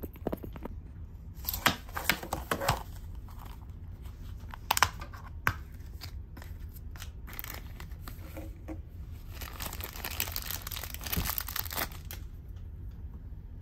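Close-up plastic handling: a run of sharp clicks and snaps as a clear plastic toy capsule is worked open, then, from about nine seconds in, a few seconds of steady crinkling and tearing of a thin plastic wrapper.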